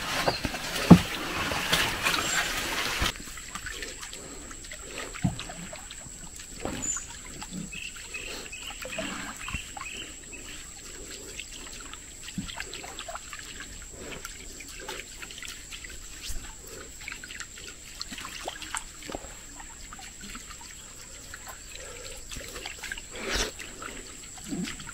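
Leaves rustling and brushing for the first three seconds or so, then quiet trickling, dripping and small splashes on still swamp water, with scattered light clicks, as a bamboo fishing rod works a lure across the surface.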